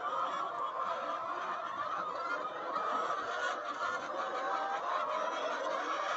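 A flock of chickens clucking together, a steady dense chatter of many overlapping calls.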